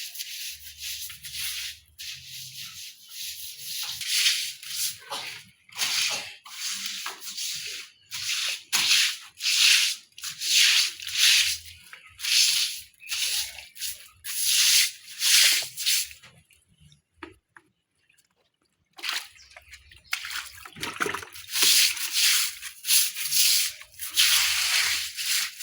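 Bristles scrubbing a wet surface during kitchen cleaning: a run of scraping strokes, about one or two a second, that stops for a couple of seconds past the middle and then starts again.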